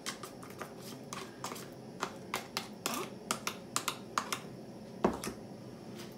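Gas stove burner hissing steadily under a stainless steel stovetop toaster, with a dozen or so irregular light clicks and ticks and one louder thump about five seconds in.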